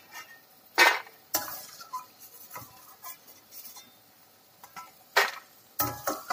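A metal slotted spoon clinking and scraping against a stainless steel pan and plate as fried vadiyalu are lifted out of the oil, with a few sharp clanks, the loudest about a second in and another about five seconds in, and light ticks between.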